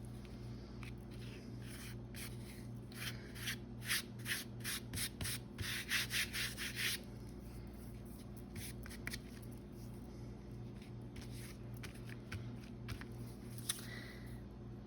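Paper being rubbed by hand in a run of quick scratchy strokes, about two a second, for a few seconds, then a few fainter strokes; a steady low electrical hum runs underneath.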